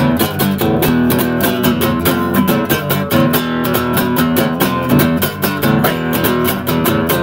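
Acoustic guitar strummed in a fast, steady rhythm, with the chords changing as it goes.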